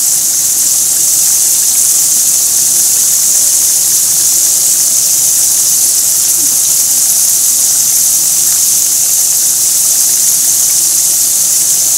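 Oil sizzling steadily as pieces of battered food deep-fry in a frying pan, a continuous high, bright hiss.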